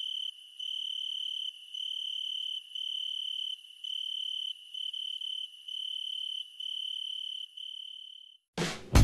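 Cricket chirping: a high, even trill in pulses of nearly a second each, about one a second, fading out near the end. Music with drums and guitar starts just before the end.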